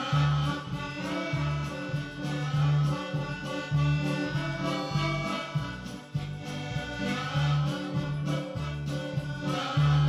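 Background music: a tune with a regularly repeating bass line under layered instruments.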